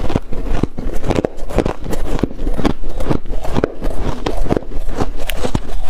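Close-up crunching of a mouthful of blender-shaved ice, a rapid run of crisp crunches several times a second, with a metal spoon scraping into the ice.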